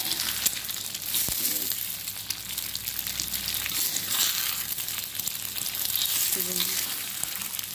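Eggs frying in hot oil in a wok: a steady sizzle dotted with fine crackles and spatters.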